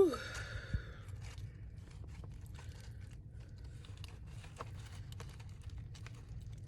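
Close-miked chewing and crunching of fried chicken: scattered soft crunches and wet mouth clicks. A loud breathy "whew" opens it, with a single low thump just under a second in.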